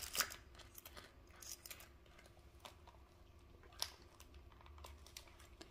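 Faint crinkling and light clicks of a clear plastic binder of zip cash envelopes being handled and closed, with a few short ticks, the sharpest about two thirds of the way through. A low steady hum runs underneath.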